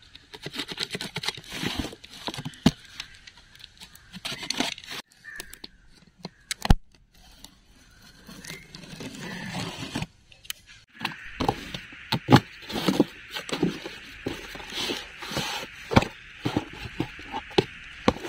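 Utility knife slitting packing tape on a cardboard carton, with scraping and tearing of tape and cardboard as the flaps are opened. In the last third, a steady crinkling with many small clicks as plastic-wrapped glass bowls are handled.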